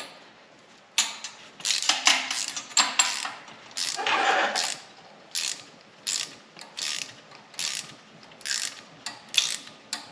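Ratcheting wrench clicking in short repeated strokes, about one a second, as it screws the adapter die of a hand-held brake line flaring tool into the end of a brake line to form a bubble flare.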